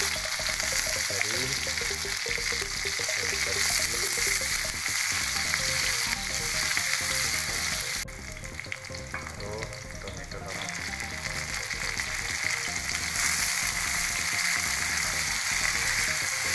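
Chopped onions sizzling in hot oil in a steel wok, stirred with a spatula. The sizzle drops away for about two seconds halfway through, then carries on as tomatoes fry along with the onions.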